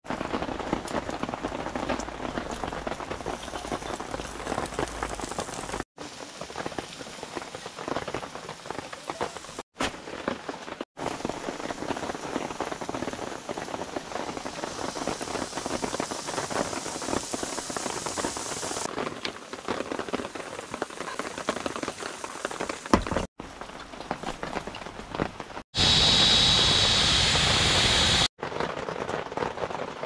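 Heavy rain falling steadily, an even hiss of drops that breaks off for an instant several times. Near the end it turns louder and hissier for a couple of seconds.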